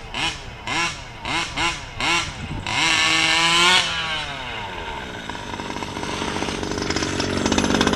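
Losi 5ive-T's two-stroke gas engine being throttled: about five quick revs up and back down, then held at high revs for about a second before winding down. It then runs steadily with a fast pulse, growing louder near the end.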